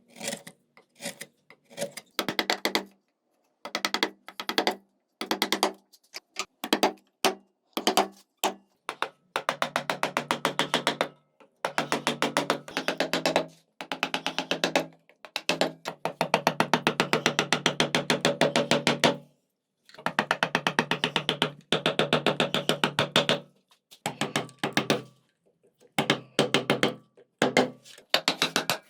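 Rasping strokes on a walnut carving, in bursts of rapid gritty clicks lasting one to four seconds each, with short silent breaks between them.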